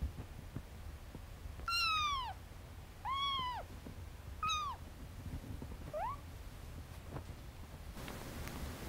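Young kitten meowing: four high-pitched meows about a second and a half apart, each arching up and down in pitch, the last one short and rising.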